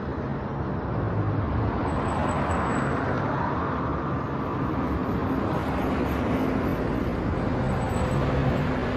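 Street traffic: vehicle engines running and tyres on the road, with the noise swelling a little in the middle as vehicles pass.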